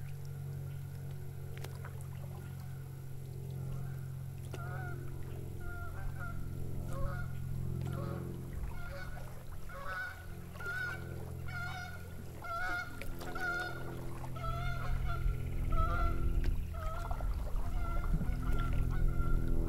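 Waterfowl honking again and again. The calls start a few seconds in and come thicker toward the end, over a steady low hum.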